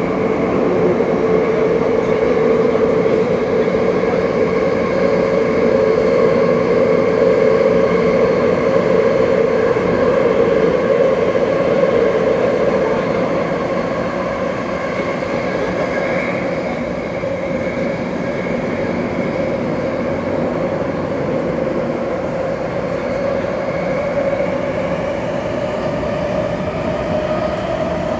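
Saitama Rapid Railway 2000 series subway car running through a tunnel, heard inside the carriage: a steady rumble and roar from wheels on rails with a droning tone that rises slightly near the end.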